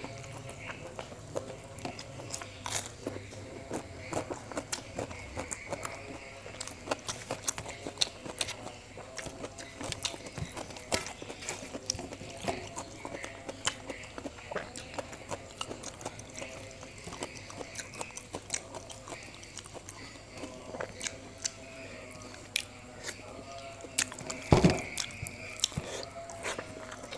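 Close-miked eating sounds: a man chewing mouthfuls of rice and side dishes eaten by hand, with frequent wet mouth clicks and smacks. A single loud thump comes about three seconds before the end.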